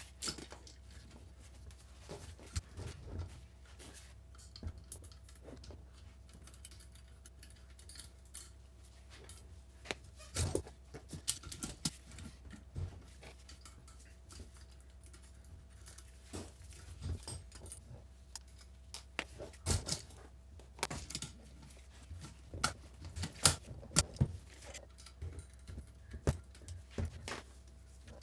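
Irregular metallic clicks and clinks of a valve spring compressor and small steel valve parts on a cast-iron cylinder head as the valve springs are compressed and the valves dismantled. The clinks come in loose clusters with short gaps between them.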